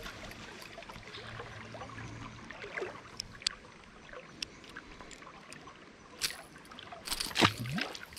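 Shallow creek water running steadily, with scattered small splashes and clicks and a louder splash near the end.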